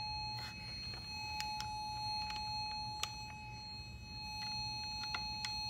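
A broken handheld Pac-Man electronic game giving out a continuous, steady electronic beep tone, a sign of its malfunction. A few faint clicks sound over it.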